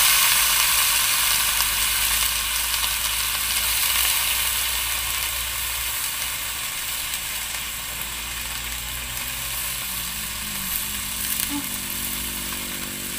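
Food frying in hot oil: a steady sizzle that comes in suddenly, then slowly eases.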